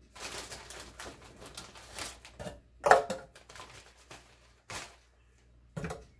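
Plastic zip-top freezer bag crinkling and rustling as it is pulled open and handled, with a loud crackle about three seconds in. A few short knocks follow near the end as frozen banana chunks are added to the blender jar.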